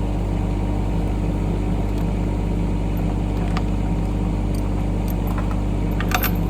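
Mini excavator's diesel engine running at a steady speed. A few sharp clicks or metallic taps near the end.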